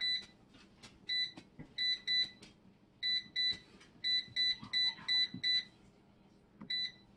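Cosori air fryer's touch control panel beeping as its buttons are tapped: about a dozen short, high, identical beeps, some in quick runs. The beeps come as the cooking time is stepped down from 15 to 5 minutes at 400°F.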